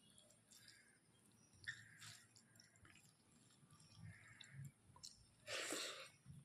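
Faint close-up mouth sounds of someone eating rice with chicken curry: soft chewing with small wet clicks, and a brief louder burst of noise about five and a half seconds in.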